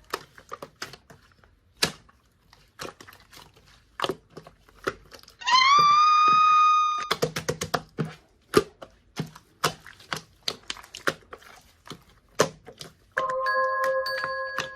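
Slime being squeezed and poked, giving irregular sharp clicks and pops. About five seconds in, a pitched tone slides up and holds for about a second and a half, and bell-like music begins near the end.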